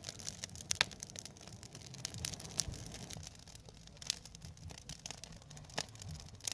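Campfire burning, the wood giving off irregular sharp crackles and pops.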